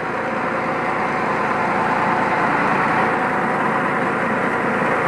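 KD 580 WG Pro mini rice mill running steadily, with its square paddy vibrator shaking the grain in the feed hopper on top.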